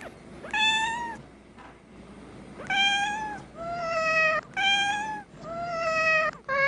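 Domestic cat meowing five times in a row, each meow a drawn-out call of under a second, some higher and some lower in pitch, with another meow starting at the very end.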